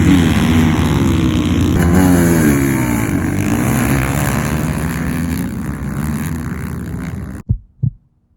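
Ice-racing engines revving as racers pass, their pitch rising and falling, until the sound cuts off suddenly about seven seconds in. Two short low thumps follow near the end.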